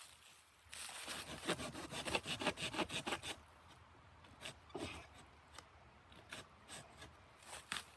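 A run of quick rasping, scraping strokes lasting about two and a half seconds, followed by a few scattered light knocks.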